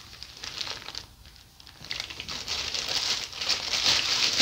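Plastic bag crinkling and rustling as it is handled: a short burst at first, a brief lull, then louder continuous crinkling through the second half.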